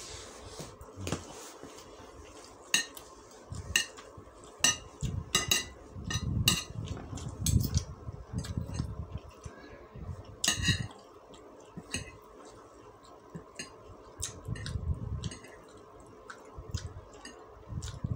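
Metal spoon and fork clinking and scraping on a ceramic plate in repeated, irregular sharp clinks, with chewing of fried noodles in between.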